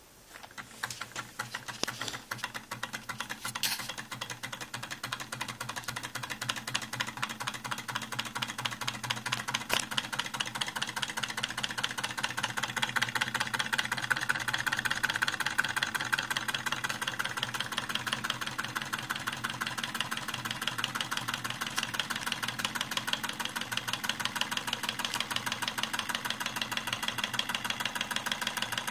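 Homemade Ross yoke alpha Stirling engine running, its pistons and yoke linkage making a rapid, even clatter. It grows louder over the first dozen seconds or so, then holds steady.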